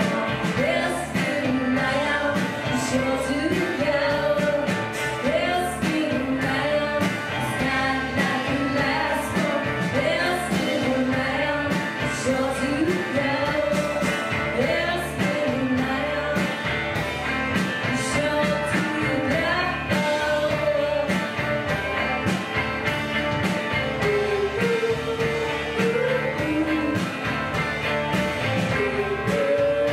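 Indie rock band playing live: electric guitars and a steady beat, with a sung vocal melody over them.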